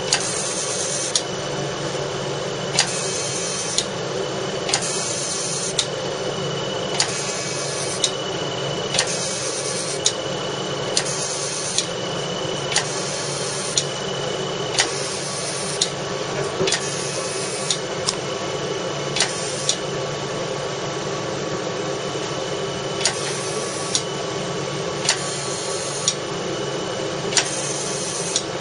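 CO2 fractional laser machine running: a steady hum with a sharp click about once a second, and a high hiss that switches on for about a second, then off, over and over.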